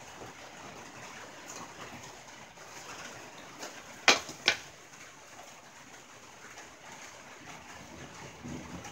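Rain falling on a tin roof: a steady hiss of drops with scattered light ticks. About four seconds in come two loud, sharp taps half a second apart.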